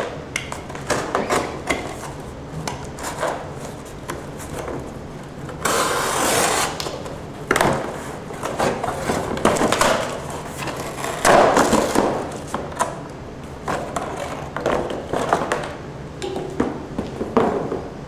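A cardboard box being slit open with a utility knife and pulled apart by hand: irregular scraping, rustling and tearing of cardboard. The loudest tearing comes about six seconds in and again around eleven seconds.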